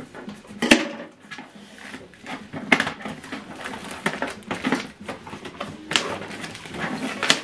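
A compact inkjet printer being unpacked by hand: plastic packing rustling and scraping, with several sharp clicks and knocks as parts are pulled free.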